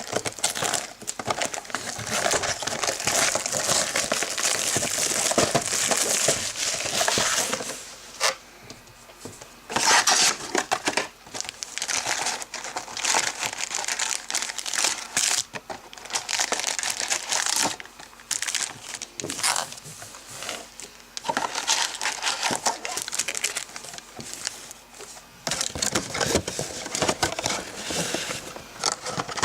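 Plastic wrapping crinkling and tearing as a box of trading card packs is opened and unwrapped, in uneven spells of rustling with short lulls.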